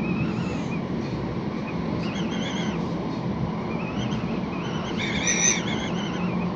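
Tram running along straight track, heard from inside the driver's cab: a steady rumble, with short wavering high whines coming and going a few times, the loudest about five seconds in.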